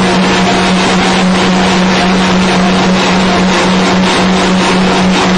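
SLG65-III puffed corn snack extruder running, a loud, even machine noise with a constant low hum.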